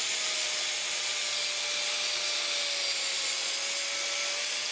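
Angle grinder with an abrasive disc grinding down the edge of a small steel backing plate: a steady grinding hiss over the motor's whine, which sags slightly in pitch about three seconds in.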